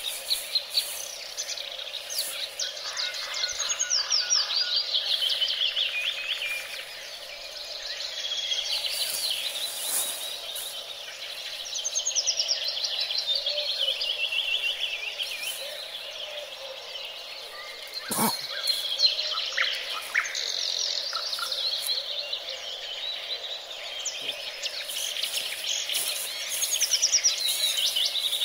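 Songbirds singing, with the same descending trilled phrase repeated every few seconds over a steady background hum of outdoor noise. Light crinkling of a plastic bag being handled, and a single sharp knock about two-thirds of the way through.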